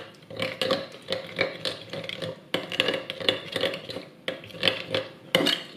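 A metal spoon stirring a thick soy sauce, mustard and garlic sauce in a glass bowl, clinking and scraping against the glass in quick repeated strokes.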